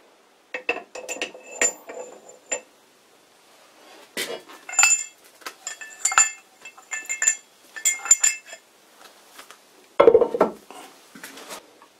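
Steel lathe parts clinking as they are handled and fitted into the tailstock: clusters of sharp metal taps with a short ring, then a duller, louder knock near the end.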